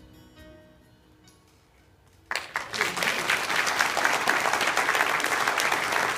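The last notes of the song's accompaniment fade out, then a congregation bursts into applause a little over two seconds in and keeps clapping.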